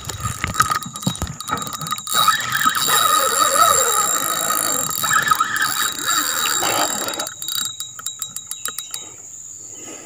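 Spinning reel being cranked to wind in line: a whirring gear sound for several seconds, then a fast run of clicks near the end. A steady high insect drone runs underneath.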